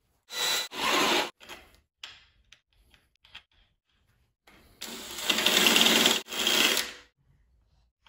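Cordless drill running in short bursts as it bores a 12 mm hole through the metal handlebar housing of a Bird 3 electric scooter. There are two brief runs near the start, then a longer, louder run about five seconds in.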